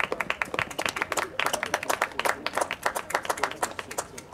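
Spectators clapping: a small group's quick, separate claps, thinning out near the end.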